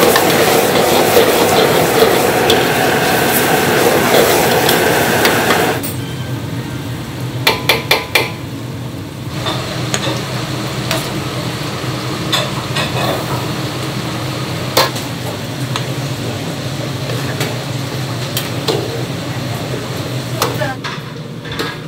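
Diced onions stir-fried in a wok over a high gas flame, with loud sizzling and the ladle stirring and scraping; about six seconds in the frying stops abruptly. After that the metal ladle clinks and scrapes against the wok and a ceramic plate as the onions are scooped out, over a steady low kitchen hum.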